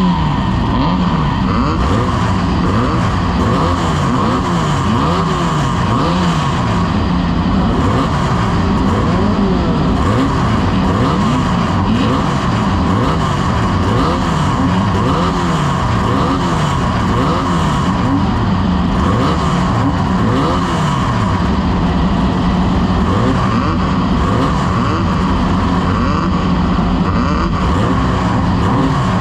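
Off-road race vehicle engines revving hard and continuously, their pitch rising and falling over and over as the throttle is worked.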